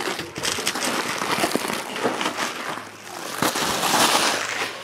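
Bubble wrap and a plastic bag crinkling and crackling as they are handled and pulled away, in two long stretches, the second louder.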